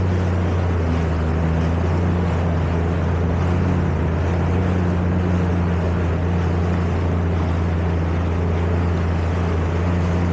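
Jet ski engine running at a steady cruising speed: a constant low drone with an even rushing noise of water and wind over it.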